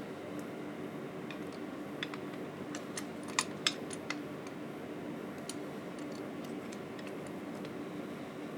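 Scattered light metal clicks and taps as a chisel is slid into a Veritas honing guide and clamped with its knurled knobs, with two sharper clicks about three and a half seconds in. A steady faint hum runs underneath.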